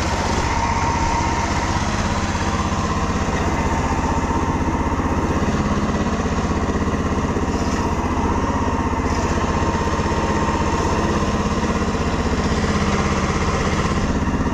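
Small Honda GX-type four-stroke engine, the kind fitted to generators, running steadily at a constant speed as it drives a small river ferry boat.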